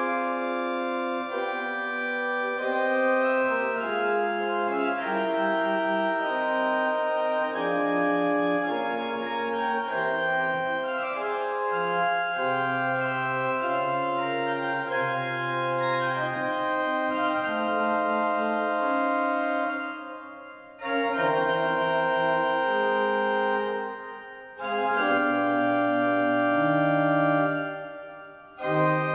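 1734 Christian Müller pipe organ playing a Baroque praeludium in E minor: sustained chords and moving lines, with a deep bass line entering near the middle. Three times in the last third the music rests and the sound dies away in the church before the next chord comes in.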